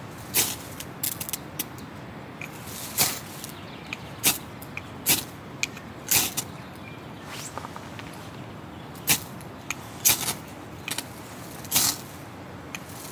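Lighting a fire in dry bark tinder by hand: about a dozen short, sharp scratchy strikes and crackles at irregular intervals as the tinder starts to smoke.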